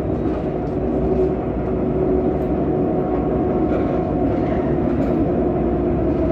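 Lyon T5 tram heard from inside the cabin while running along the track: steady rolling rumble with a constant whine over it.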